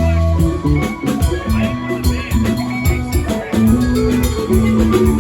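Live band music: an instrumental passage with a steady bass and drums under sustained pitched notes.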